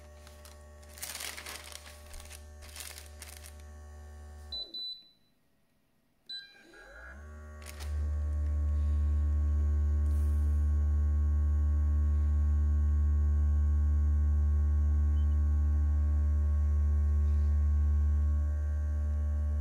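Handheld heat press beeping twice as its timer is set and started, then a loud, steady low electrical hum for about twelve seconds while it presses the transfer, stopping near the end.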